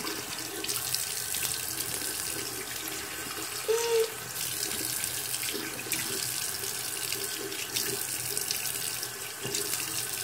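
Bathroom sink tap running steadily, with irregular splashes as water is splashed onto the face to rinse off a scrub. A brief hummed note about four seconds in.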